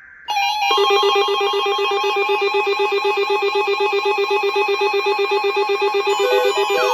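Loud electronic alarm tone, a rapid trill like a telephone ringer, starting suddenly about a third of a second in and running steadily. Short beeps and a rising-and-falling siren-like sweep join it near the end.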